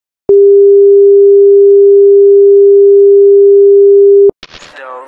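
A loud, steady single-pitch test tone, the kind played under a television test card, holds for about four seconds and cuts off suddenly. Near the end a rising, swooping sound leads into music.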